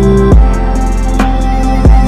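Background music with sustained chords over deep, regular drum hits.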